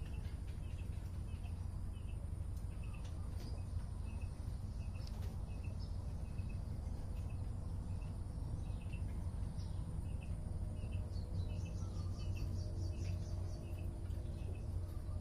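Outdoor ambience: a steady low rumble under a short, high chirp repeating about twice a second, with a brief quick run of higher notes about eleven seconds in.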